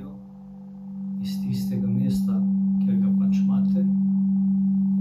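Singing bowl sounding a steady, pure low tone. It dips just after the start and swells back up about a second in.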